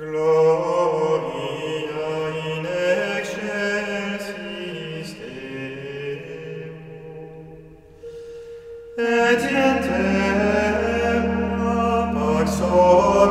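Gregorian chant sung by a group of canons, sung voices holding long notes. It thins to a quieter passage about eight seconds in, then comes back fuller and louder.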